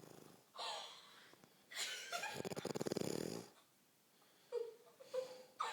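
Loud snoring: a short breath about half a second in, then a long rattling snore of over a second starting about two seconds in, followed near the end by a few short whistling wheezes.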